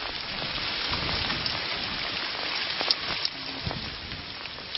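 Rain falling steadily, an even hiss with a few sharper drip ticks.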